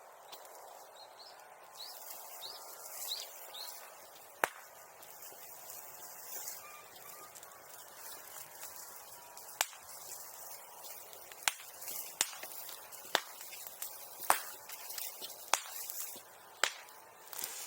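Bonfire catching light: a steady hiss with sharp pops and cracks that come more often toward the end. A bird chirps a few times early on.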